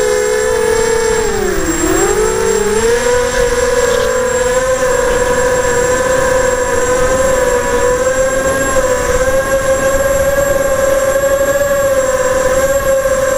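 Graupner Alpha250 racing quadcopter's electric motors and propellers whining in flight, heard from its onboard camera. The pitch sags for a moment about a second and a half in, then climbs back and holds fairly steady with small wavers as the throttle is worked.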